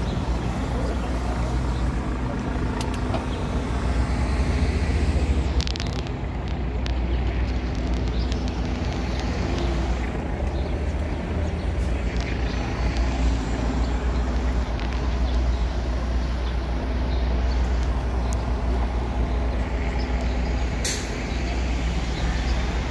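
City street traffic at an intersection: bus and car engines rumbling steadily as vehicles idle and pass. There are brief hisses of air, once about five seconds in and once near the end.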